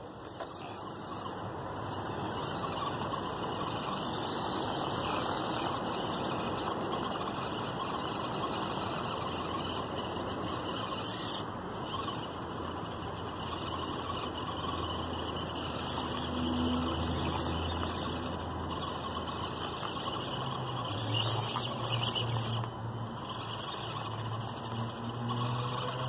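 Axial SCX24 Deadbolt 1/24-scale micro crawler's small 88T electric motor and geartrain whirring steadily as the truck crawls slowly over rocks, getting a little louder and lower in the second half.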